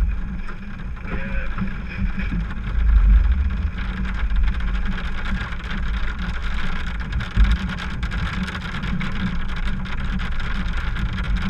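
Car cabin in a rainstorm: steady low engine and road rumble, with raindrops tapping on the windshield as fine scattered clicks. Two heavier low thumps stand out, about three and seven seconds in.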